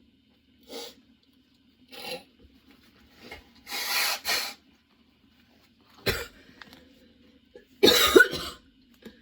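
A woman coughing in a persistent fit: a run of harsh, raspy coughs, with a double cough about four seconds in and the loudest burst of coughing near the end.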